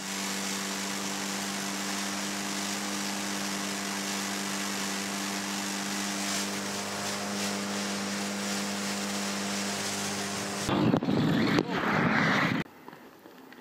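Small motorcycle engine running at a steady speed on the move, with wind rushing over the microphone. Near the end a louder rush of noise lasts about two seconds, then the sound drops away suddenly.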